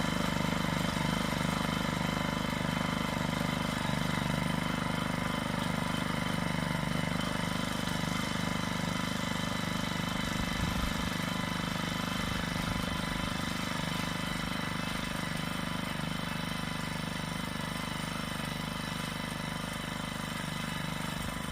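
An engine running steadily at an even idle.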